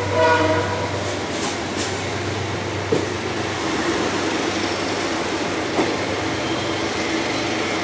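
Amtrak Amfleet passenger cars rolling out past the platform, a steady rumble of wheels on rail with a couple of sharp clicks from the rail joints, fading as the last car moves away. A train horn blast cuts off about half a second in.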